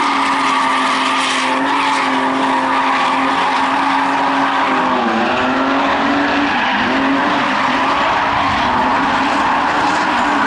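Cars drifting, with engines held at high revs under wheelspin and tyres squealing and scrubbing across the concrete. The main engine note dips briefly about five seconds in and then climbs back.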